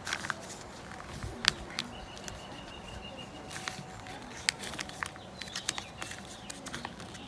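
A sheet of printer paper being handled and creased by hand during folding: scattered soft crinkles and small taps over a steady background hiss.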